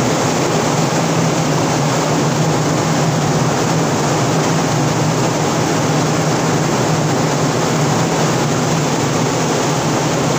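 Steady machinery noise from a livestock ship: an even rushing sound with a constant low hum underneath, unchanging throughout.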